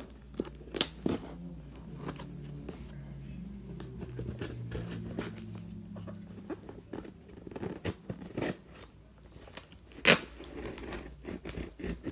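A knife slitting the packing tape on a cardboard shipping box, then the flaps being pulled open: tearing, scraping and crinkling of cardboard and tape, with scattered clicks and one sharp knock about ten seconds in.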